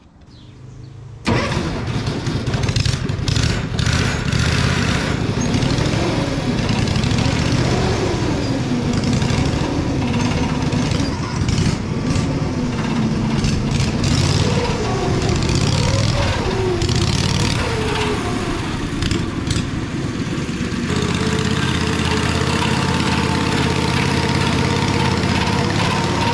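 A 15 hp Kawasaki V-twin engine with no exhaust fitted, running on a home-built amphibious ATV as it is driven around. Its pitch rises and falls repeatedly with throttle and load, then holds steady for the last few seconds.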